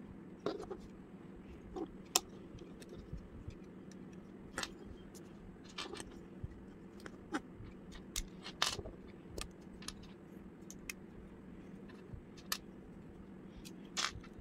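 Small plastic Lego bricks clicking and snapping together as they are pressed into place by hand: irregular short clicks and light scrapes, some sharper than others, over a faint steady hum.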